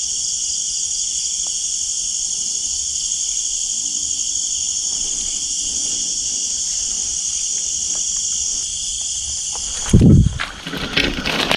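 Steady chorus of night insects, a continuous high shrill. About ten seconds in, loud knocks and rustling close to the microphone briefly cover it.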